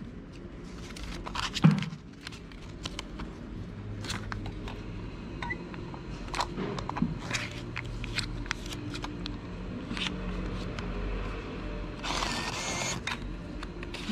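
Banknote paper crinkling and tapping against a vending machine's bill slot as it is handled and fed in, in scattered short clicks with a couple of low knocks early on. About twelve seconds in, a rasping whirr of about a second as the bill acceptor draws the note in.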